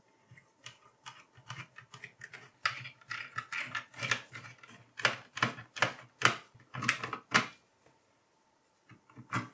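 Screwdriver undoing the screws that hold the CPU heatsink of an HP ProDesk 600 G2 Mini: a run of small, irregular metal clicks and ticks for about seven seconds. After a pause, a few more clicks come near the end.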